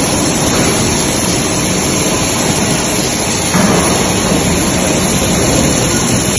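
Loud, steady factory-floor machinery noise with a thin, high steady whine.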